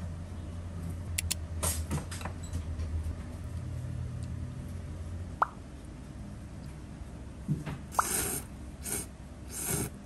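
Someone slurping thick kalguksu wheat noodles in a few short bursts, loudest near the end, with two brief pops about five and eight seconds in.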